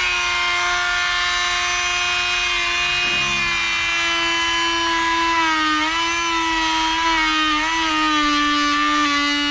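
Handheld electric power tool running at full speed with a steady high whine while cutting. Its pitch sags a few times in the second half as it comes under load.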